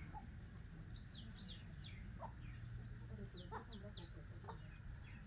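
A small bird chirping repeatedly: quick, high chirps that sweep downward, often in twos or threes, about once a second, faint against quiet outdoor background.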